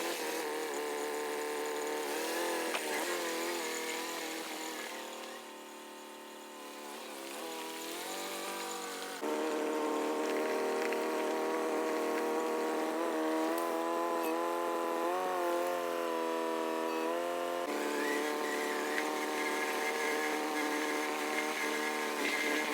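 An engine running steadily, its pitch dipping and rising in places, with sudden jumps in level about nine and eighteen seconds in.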